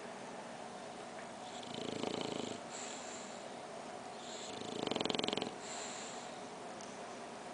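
English bulldog puppy snoring in its sleep: two snores about three seconds apart, each lasting about a second.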